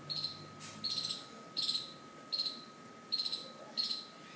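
An insect chirping at an even pace, six short high chirps, one about every three-quarters of a second, over a faint steady high whine.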